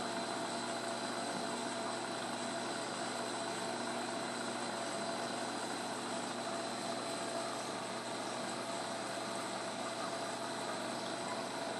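Reef aquarium equipment running: a steady mechanical hum with a constant high whine over an even hiss, unchanging throughout.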